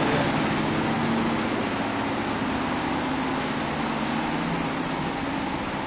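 A motor running steadily: a low hum under an even hiss.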